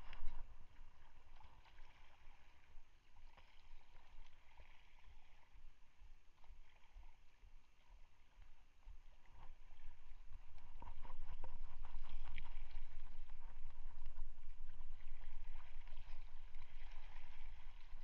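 Wind buffeting the body-mounted camera's microphone over choppy sea water: a low rumble that grows louder about ten seconds in, with a few faint clicks.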